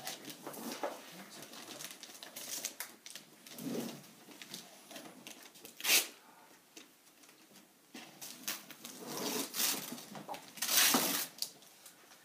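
Wrapping paper on a gift box being torn and crinkled by a small child's hands, in uneven noisy bursts: one sharp rip about six seconds in and a longer run of tearing near the end.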